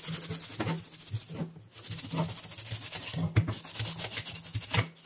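Brush scrubbing a switching power supply's circuit board wet with 99% isopropyl alcohol. Quick scratchy back-and-forth strokes come in about four bouts, with short pauses between them.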